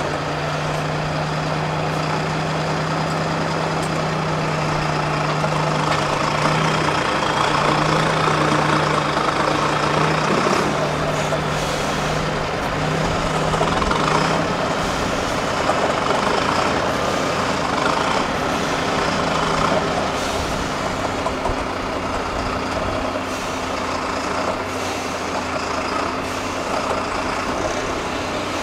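Diesel engine of a MAN 6x6 trial truck running steadily under load as the truck crawls through a deep trench; its steady low note fades out about two-thirds of the way in.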